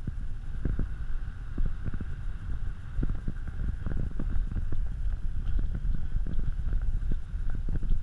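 Gusty wind buffeting the camera microphone: an uneven low rumble broken by frequent short thumps.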